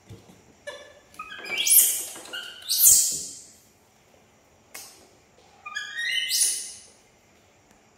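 Baby monkey screaming: three shrill, high-pitched cries, the first rising in pitch, the last coming about two seconds after the second.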